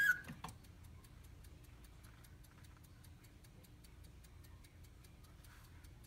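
Mechanical clock movement of a Reuge singing-bird automaton ticking faintly with a quick, even beat, just after the last whistled bird note cuts off at the very start.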